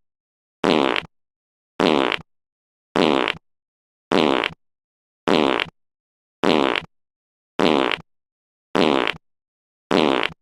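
A recorded fart sound looped over and over: the same short fart, about half a second long, repeats about every 1.2 seconds with dead silence between, about nine times.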